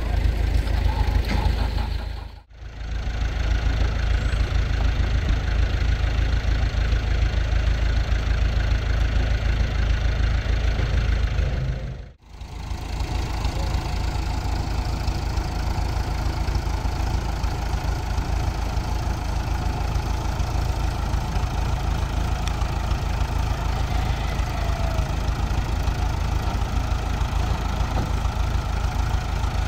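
An engine running steadily, a continuous low rumble. The sound drops out briefly twice, about two and a half seconds in and again about twelve seconds in.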